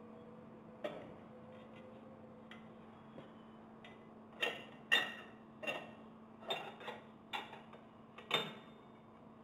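Stainless-steel stage casing and impeller of a GEA Hilge CONTRA Bloc multistage centrifugal pump being fitted by hand, metal clinking on metal. There is one faint click about a second in, then about seven sharp clinks with a short ring through the second half. A steady low hum runs underneath.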